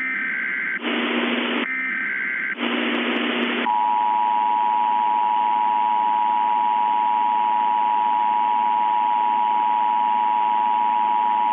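Emergency Alert System tones: two short bursts of SAME header data, a shrill digital warble, with a hiss between them. About three and a half seconds in, the steady two-tone EAS attention signal begins and holds.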